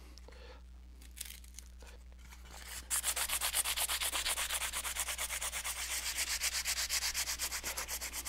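Hand sanding with 80-grit sandpaper on a stiff closed-cell foam block: quick back-and-forth strokes, about five a second, scuffing cured epoxy on a wooden kayak seat back to knock down the high spots and dull the shine to a matte finish. The sanding starts about three seconds in, after a few light handling clicks.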